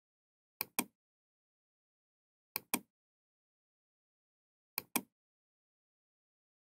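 Computer mouse clicks: three pairs of quick, sharp clicks about two seconds apart, with dead silence between them.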